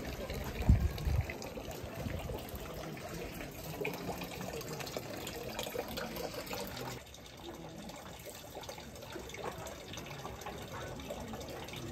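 Running water splashing steadily, with people's voices in the background; the level drops about seven seconds in.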